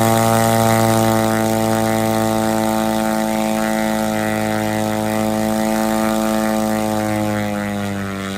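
Corvair air-cooled six-cylinder flight engine, converted from a Chevrolet Corvair car engine, running on a test stand and turning its propeller at a steady high speed. Engine speed eases off slightly near the end.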